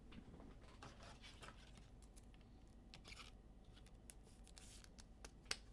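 Near silence with faint scattered clicks and short rustles of handling, and one sharper click near the end.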